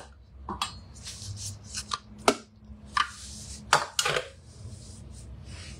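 Spices and liquid spitting in the hot steel bowl of a Thermomix: about half a dozen sharp pops and clicks with short bursts of hiss between them, over a low steady hum.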